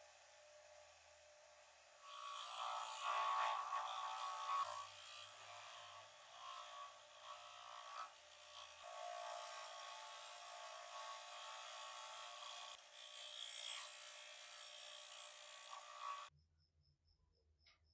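Bench grinder running with a buffing wheel. From about two seconds in, the meat grinder's small clamp screw is pressed against the spinning wheel, making a steady, louder rubbing noise that cuts off suddenly near the end.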